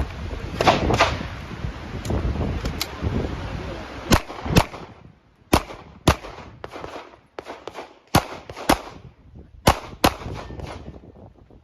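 Handgun shots fired rapidly during a USPSA stage run, mostly in quick pairs about half a second apart, with fainter shots between and a few seconds of scuffling movement near the start.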